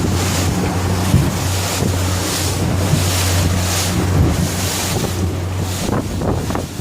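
Fishing boat's engine running with a steady low hum as the boat pushes through rough sea, under strong wind buffeting the microphone in gusts and the wash of waves.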